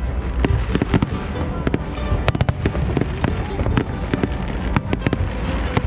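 An aerial fireworks display bursting in rapid succession: many sharp bangs and crackles over a continuous low rumble, with the show's accompanying music playing.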